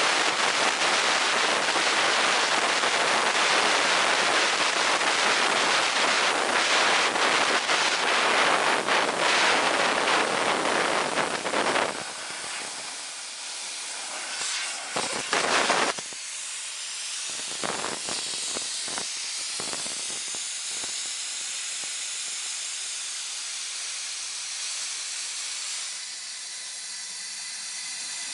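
Compressed air hissing out of a scuba cylinder through a burst medium-pressure regulator hose as the tank runs down. The hiss is loud and steady, weakens suddenly about twelve seconds in, sputters briefly a few seconds later, then goes on thinner with a faint wavering whistle.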